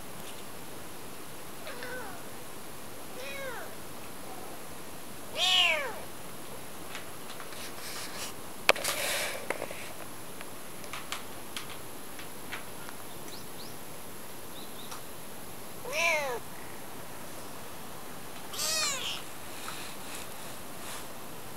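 Very young white kitten meowing: five high, thin mews, each rising then falling in pitch, the first two faint and the later three louder. A single sharp click with some rustling comes midway.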